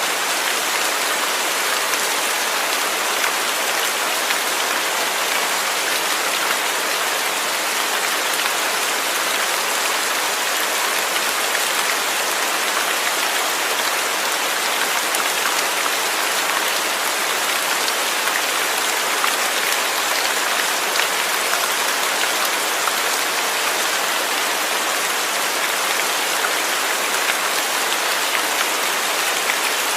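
Steady rain falling, an even dense hiss of drops on a surface, with no thunder.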